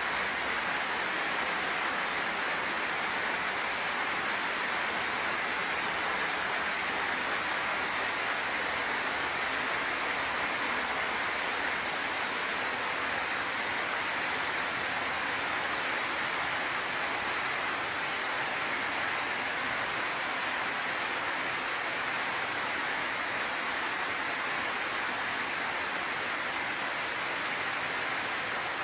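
Steady, unchanging hiss, strongest in its highest, sharpest range, with no distinct events.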